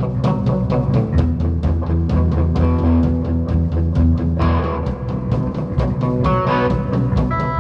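Loud rock music with electric guitar, bass and drum kit, a steady tick of about five beats a second over a sustained bass line. A higher melodic line comes in about halfway through and again near the end.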